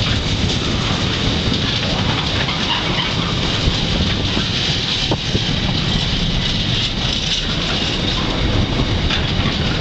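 Intermodal container wagons of a freight train rolling past at speed: a steady rumble of wheels on rail, with a few sharp clicks from the wheels over rail joints.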